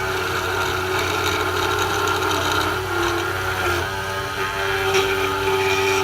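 Key-cutting machine's motor running steadily while its cutting bit mills a key blank traced from a setup key. The pitch of the motor shifts slightly about halfway through.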